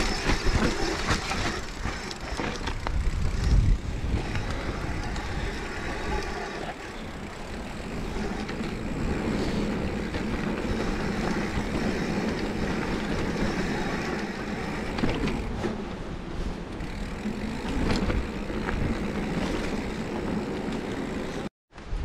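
Mountain bike being ridden along a forest trail: a steady rolling rush of tyres and riding noise, with heavy knocks and rattles over rough ground in the first few seconds. The sound drops out suddenly for a moment near the end.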